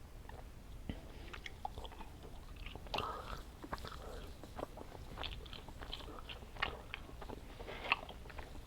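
A person chewing candy close to the microphone: irregular mouth clicks and smacks, several a second.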